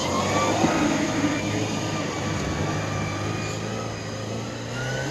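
Four-wheel-drive engine running at low speed as it crawls along a dirt track: a steady low hum that eases slightly near the end.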